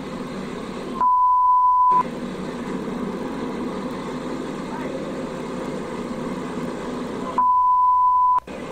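Steady drone of a light aircraft's engine and propeller inside the cabin, broken twice by a one-second high pure bleep dubbed over the sound, once about a second in and again near the end, during which the cabin noise drops out.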